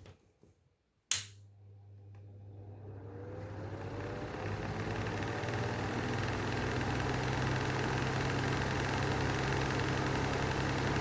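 Lanson style 3 exhaust fan switched on with a sharp click about a second in. Its motor hums at once, and the fan spins up over the next few seconds, its running noise rising and then holding steady. The fan's bearings are bad and need replacing.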